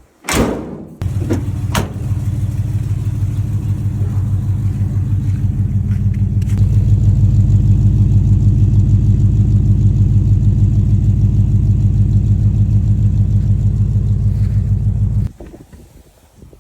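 1971 Ford F250 truck engine catching about a second in after a brief loud burst, then running with an even pulse for about fourteen seconds, a little louder from about six seconds in, before it is shut off and stops abruptly.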